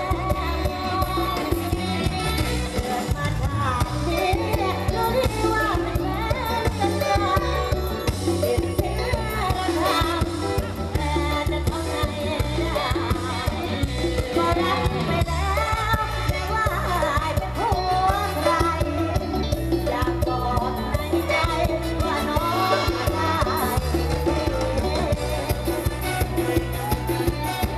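Live mor lam band music played loud through a stage sound system, with a woman singing the melody over a steady bass beat.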